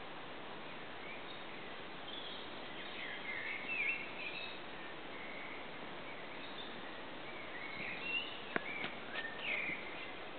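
Songbirds singing in short warbling phrases over a steady hiss of distant road traffic.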